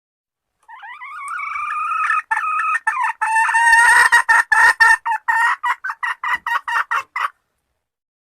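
Hen calling: one long wavering note, then a quick run of short clucks at about five a second that stops abruptly a little after seven seconds in.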